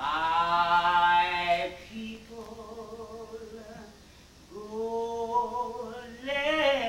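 A woman singing unaccompanied, holding long notes with a wavering vibrato in three phrases, the first the loudest.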